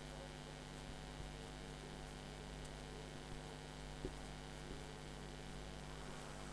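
Steady low electrical mains hum with faint hiss, with a single faint tap about four seconds in.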